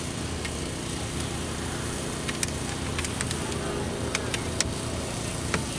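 Small gasoline engine of a hydraulic rescue-tool power unit running steadily, with scattered light clicks and clinks of tools on top.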